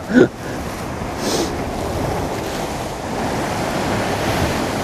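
Sea surf churning and breaking against the rocks below, a steady rush of water, with gusty wind buffeting the microphone.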